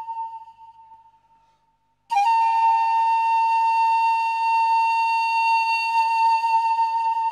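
Slideshow background music: a held note fades away, and after a brief gap a single long note at about the same pitch starts abruptly about two seconds in and is held steady.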